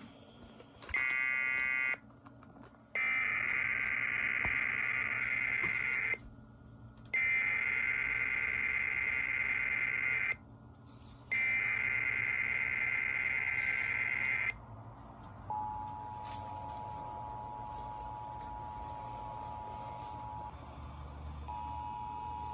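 Emergency Alert System activation: a brief burst, then three SAME header data bursts of about three seconds each, separated by short gaps. The steady two-tone EAS attention signal follows; it drops out briefly and resumes.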